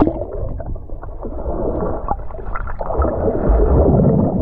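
Sea water sloshing and gurgling, muffled, with scattered clicks and a louder low rush about three seconds in.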